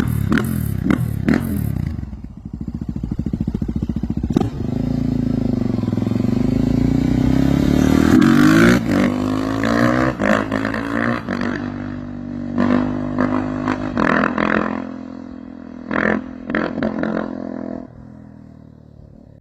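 Suzuki DR-Z400's single-cylinder four-stroke engine revving through an FMF Powercore 4 exhaust: quick throttle blips at the start, a long rise and fall in revs, then more sharp blips, settling to lower, quieter running near the end.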